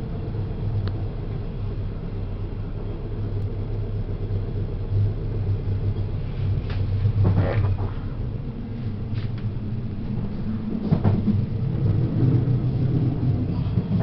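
Passenger train running, a steady low rumble heard from inside the carriage, with brief louder noises about seven and a half and eleven seconds in.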